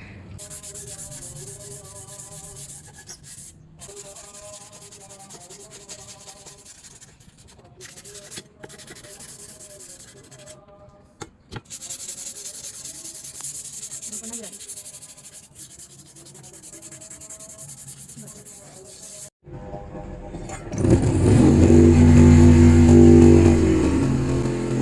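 Rubbing or sanding on metal, a steady scratchy hiss. After a sudden break near the end comes a much louder, steady pitched hum.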